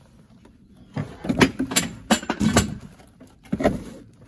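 A run of irregular metal knocks and rattles from a rusted steel lawnmower deck as the seized, grass-caked blade adapter under it is worked by hand. About six hits over some three seconds, starting about a second in.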